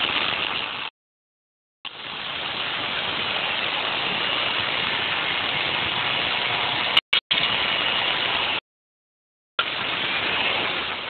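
Y axis of a first homemade CNC machine traversing under its drive motor: a steady hissing run that cuts off abruptly and restarts twice, with two sharp clicks about seven seconds in.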